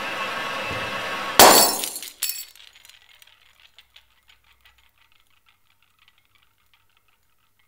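A steady droning hiss cut off by a sudden loud crash of something breaking, a second smaller impact just after, then small pieces clinking and settling for a few seconds before it goes quiet.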